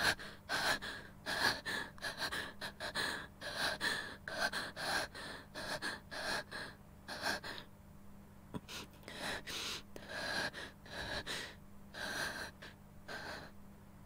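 A person panting hard, out of breath after running, with quick breathy gasps about twice a second that slow and fade in the second half. A low steady hum runs underneath.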